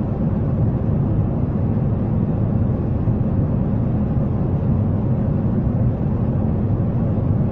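Steady low rumble of a jet airliner in flight, an even drone without change.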